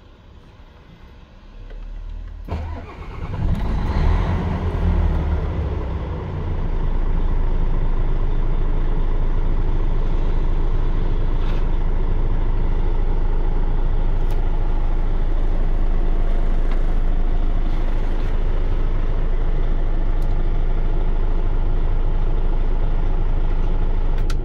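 Hyundai D6CE six-cylinder diesel of a 25-ton dump truck starting from cold: it cranks, catches about three seconds in with a brief flare of revs, then settles into a steady idle.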